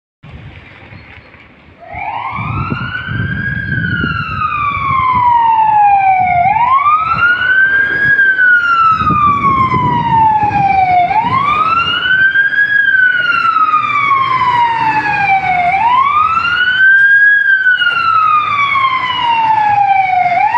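Fire engine siren sounding a slow wail, starting about two seconds in: each cycle rises quickly and then falls slowly over about four and a half seconds, repeating four times. Under it runs the low rumble of the truck's engine.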